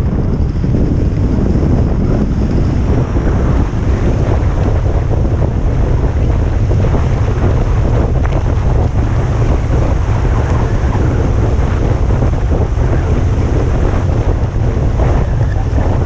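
Loud, steady wind buffeting the microphone of a skier's camera while skiing downhill, a deep rumble with the rough hiss of skis running over packed snow beneath it.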